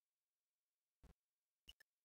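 Faint computer mouse clicks: a single click about a second in, then a quick pair of clicks near the end.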